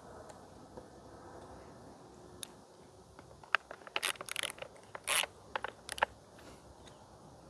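Saw chain on a Stihl chainsaw bar being handled and checked by hand: a run of light metallic clicks and short rattles, starting about three and a half seconds in and lasting a few seconds.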